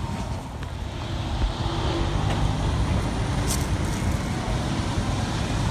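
Steady road traffic noise from passing vehicles, mostly low in pitch.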